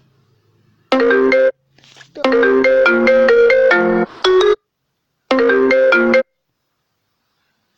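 Mobile phone ringtone previews playing through the phone's speaker: short melodies of clear, bright notes that start and cut off abruptly several times as tones are tried in the ringtone settings list.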